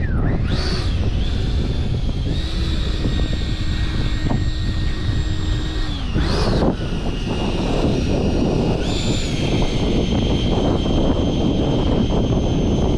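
Electric ducted-fan whine of an E-flite Viper 90 RC jet in flight, with two quick fly-bys where the whine sweeps up and drops, about half a second in and again about six and a half seconds in. The pitch steps up about nine seconds in. Strong wind buffets the microphone underneath.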